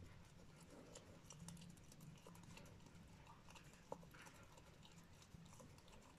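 Faint licking and small clicks of an Australian Shepherd licking out a small plastic cup, with one sharper click about four seconds in, over a low steady hum.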